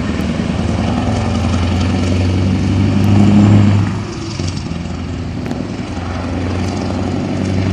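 Truck engine pulling away with a clattering exhaust and a low, fast-pulsing note. It swells to its loudest about three seconds in and drops back sharply a second later.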